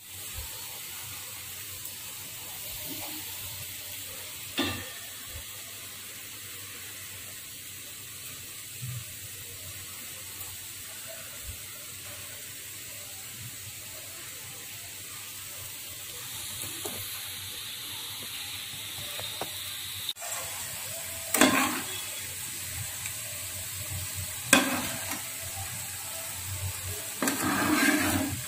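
Egg masala gravy sizzling steadily in a nonstick frying pan as it is stirred, with a spatula and ladle scraping and knocking against the pan a few times, the loudest near the end.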